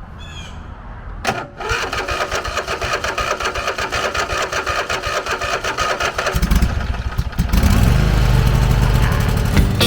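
Riding lawn mower's Briggs & Stratton engine being started after sitting for a week: the starter cranks it over for several seconds, and about six seconds in it catches and runs much louder and steadier.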